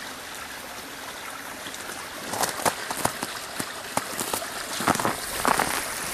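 Steady rushing of a creek, with irregular crunching footsteps starting about two seconds in.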